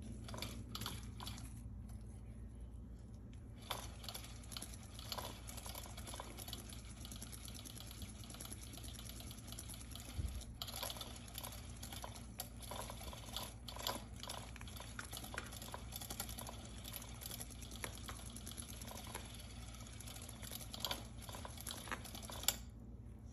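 Electronic spinning-butterfly cat toy running while a kitten bats at the butterfly: dense, irregular light ticking and rattling over a faint steady high hiss.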